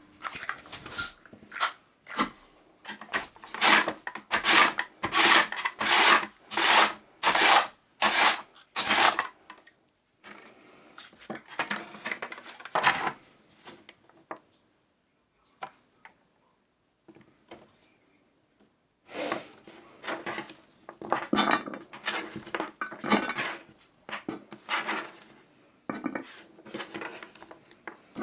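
Raw potatoes being sliced on a wooden surface: a run of even rasping strokes, a bit more than one a second, then a quiet pause, then more irregular cutting strokes.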